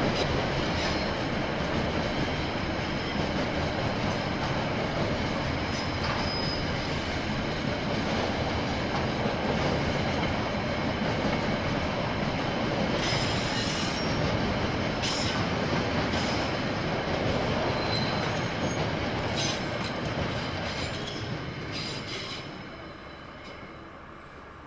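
KiwiRail freight train of container wagons rolling past: a steady rumble of steel wheels on rail, with thin high wheel-squeal tones and scattered metallic clanks. It fades near the end as the tail of the train moves away.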